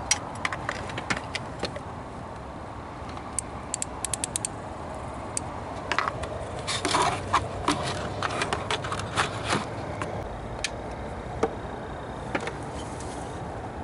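Metal hand tools clicking and clinking as a ratchet with an extension and a 5/8-inch deep spark plug socket is fitted down into the spark plug wells. Sharp scattered clicks, a quick run of them about three and a half seconds in, and a busier stretch of clicks from about six to ten seconds.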